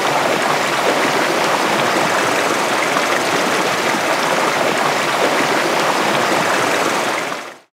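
A river's current rushing steadily, an even loud wash of water with no other sound, fading out near the end.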